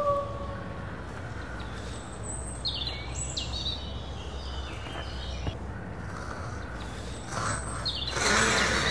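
Woodland ambience with birds chirping in short, falling calls, and a howl fading out about half a second in. Near the end comes a louder rustling hiss.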